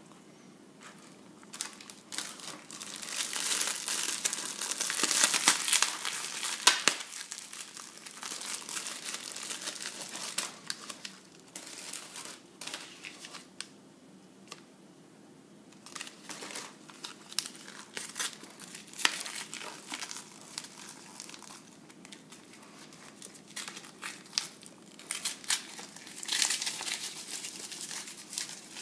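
Paper food packaging and drink-mix packets crinkling and being torn open by hand, in irregular bursts with sharp crackles, loudest a few seconds in and again near the end.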